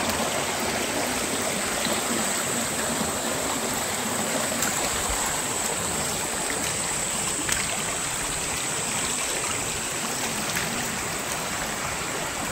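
Steady rushing of a muddy stream of runoff water flowing through landslide debris.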